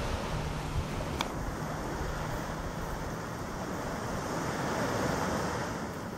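Steady wash of surf on a sandy beach, with wind buffeting the microphone.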